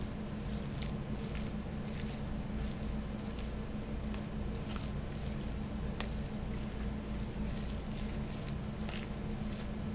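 A fork mashing and stirring shredded chicken and refried beans in a plastic bowl, making wet squishing sounds with irregular light clicks and scrapes against the bowl, over a steady low hum.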